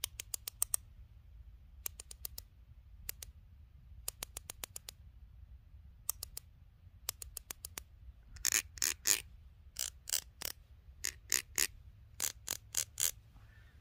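Homemade squirrel call: a wooden tongue depressor worked across the threads of a nylon bolt set in a broomstick-handle piece, giving series of quick sharp clicks with pauses between, louder in the second half. It is a squirrel call meant to bring squirrels out.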